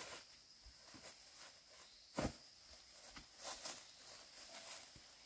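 Faint rustling and handling noises as bamboo shoots are gathered on dry bamboo leaf litter and a plastic sack is handled, with a crinkle a little after the middle. One sharper knock about two seconds in is the loudest sound.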